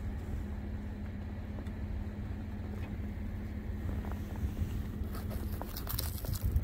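Pickup truck engine idling with a steady low rumble and hum. Near the end comes a brief run of rustling and scraping as a gloved hand handles the snow-covered fabric spare-tire bag.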